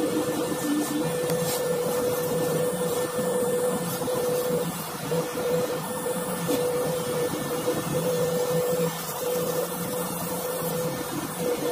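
A small electric motor, a rotary polishing tool, running steadily with a hum that dips briefly a few times.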